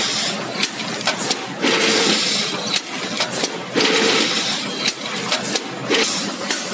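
Automatic vertical bag-packing machine running, a dense mechanical clatter with many sharp clicks and surges of hiss that recur every second or two as it forms and cuts the bags.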